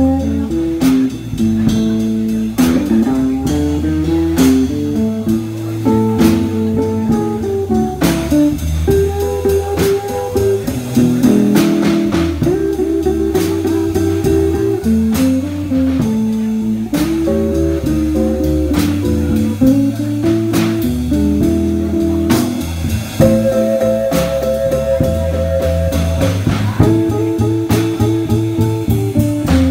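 Small live blues band playing an instrumental passage: guitar lines over a drum kit keeping a steady beat.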